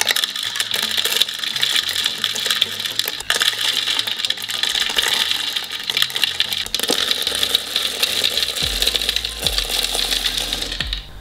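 Shelled roasted peanuts poured into a plastic food processor bowl: a dense, continuous rattle of nuts clattering against the plastic and against each other.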